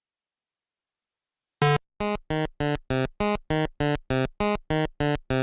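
A buzzy, electronic-sounding tone pulsed in a fast even rhythm, about three pulses a second at one unchanging pitch, starting about a second and a half in.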